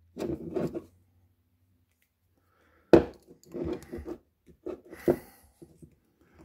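Steel picks scraping and clicking against the head of a Thorsen 77J open-head ratchet as its shield is pried loose, in short bursts with a sharp metallic click about three seconds in.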